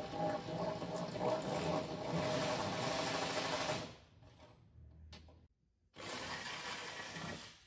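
A handheld power tool's motor whirring as it works a bolt on a Ram ProMaster van's front strut. It runs for about four seconds and stops, then runs again for a shorter stretch near the end.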